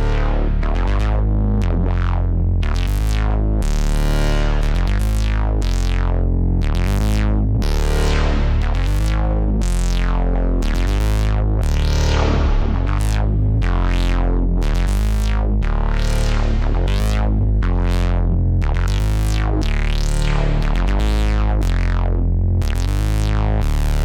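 IK Multimedia Uno Synth Pro X analog synthesizer playing a patch: a deep bass line stepping between notes, with repeated plucked notes whose filter sweeps open and shut about twice a second.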